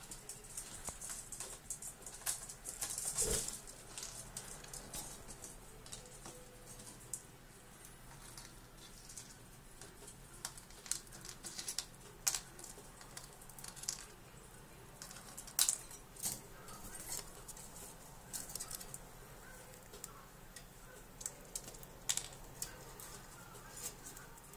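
Siberian chipmunk moving about its cage, making scattered small clicks and scratchy rustles on the wood and shavings bedding, with a longer scrabbling burst about three seconds in.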